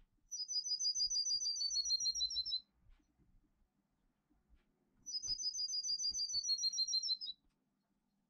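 Songbird singing a 'canto metálico' song, played as a tutor song for young birds to learn: a fast trill of clear ringing notes, falling slightly in pitch, heard twice, each phrase about two seconds long.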